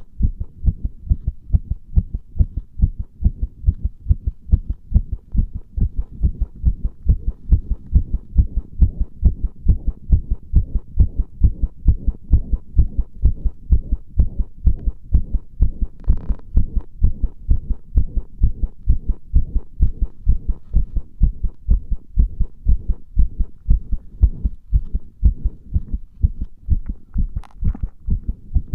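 Human heartbeat heard close up through a pressed-on microphone, a fast, even rhythm of low thuds.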